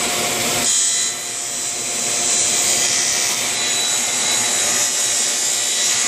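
Table saw running steadily with a high whine as it cuts a mitered end on a board held at an angle in a compound-miter jig. The sound shifts slightly about a second in.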